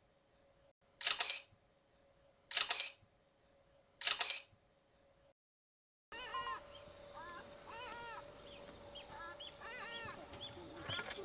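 Three camera-shutter clicks about a second and a half apart, then, from about six seconds in, a run of many short, repeated chirping calls.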